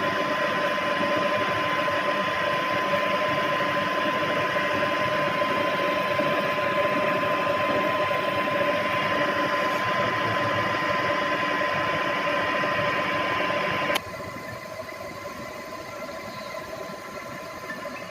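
Conventional tool-room milling machine running, a steady mechanical hum with a high gear whine. About fourteen seconds in the sound drops abruptly to a quieter steady run.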